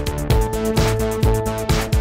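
Background electronic music with a steady, quick beat under held synth notes.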